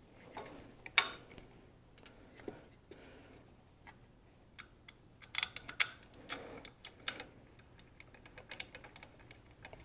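Scattered clicks and knocks of a hard plastic engine-bay module and its connector being handled and seated by hand. There is a sharp click about a second in and a quick cluster of clicks a little past the middle.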